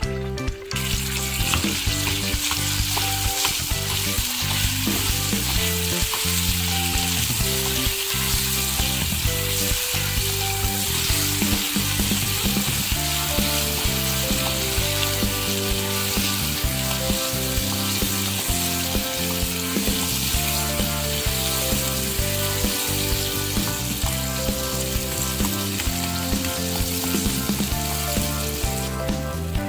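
Blueberries and blackberries sizzling in olive oil and sugar in a saucepan while being stirred with a wooden spatula, with background music. The sizzle starts just under a second in and stops shortly before the end.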